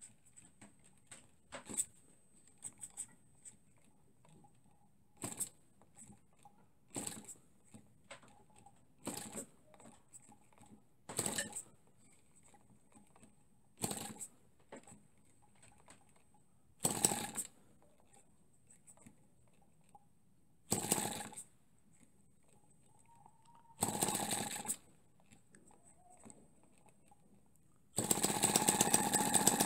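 Miniature spark-ignition four-stroke pushrod engine being hand-started by flicking its flywheel after priming. It fires for a moment every two to three seconds, each spell of firing a little longer, then catches near the end and keeps running steadily.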